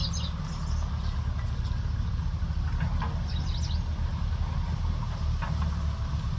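Steady low rumble, with a few faint light clinks of a spoon and chopsticks against a small bowl.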